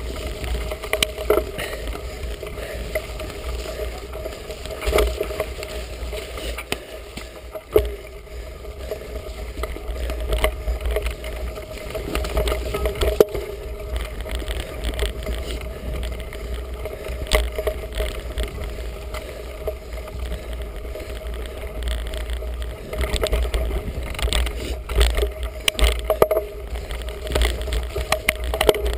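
Felt Edict Elite mountain bike ridden over a muddy, rutted woodland trail, picked up by a GoPro action camera: a steady rumble of wind and tyres on the ground, broken by frequent knocks and rattles as the bike hits bumps, the sharpest about 13 seconds in.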